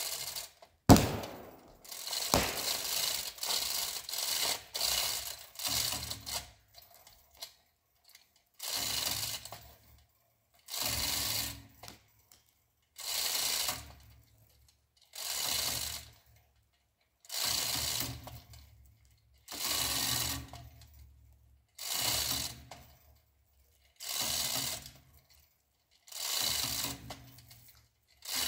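A 2-ton chain fall worked by hand under load. Its chain rattles and the pawl clicks in a burst with each pull, about one pull every two seconds, with quicker pulls in the first few seconds. There is a single sharp knock about a second in.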